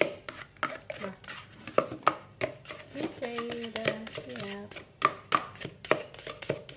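A spatula knocking and scraping against the sides of a plastic mixing bowl while stirring thick cheesecake batter, in repeated sharp taps about two a second.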